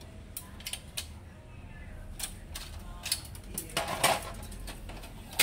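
Plastic covers and parts of an HP LaserJet M26a printer being handled and fitted: scattered light clicks and knocks, a louder clatter about four seconds in, and a sharp click near the end.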